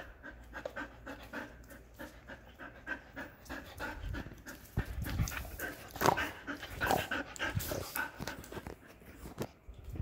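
Dog panting quickly and evenly, about three breaths a second, growing louder in the middle, with a few low thumps.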